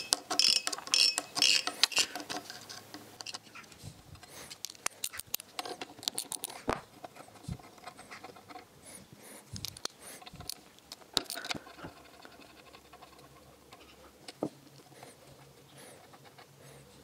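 Scattered light metallic clicks and scratches as brass jet plugs and adjustment screws are worked loose by hand and screwdriver from a Citroën U23 truck's carburetor body.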